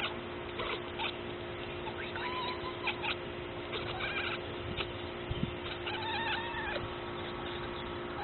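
Domestic cat chattering at a pigeon: quivering-mouth clicks broken by a few short, high, arched chirps, the excited prey-watching chatter cats make at birds they cannot reach.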